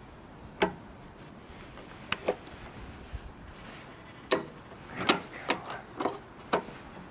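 Plastic weatherproof outdoor outlet cover being handled and fitted, giving about eight short, sharp clicks and snaps, a few at first and more closely spaced in the second half.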